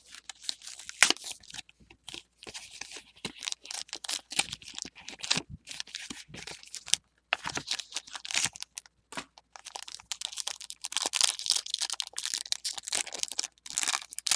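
Foil Pokémon booster pack wrapper being torn open and crinkled, with irregular crackling and sharp crinkles.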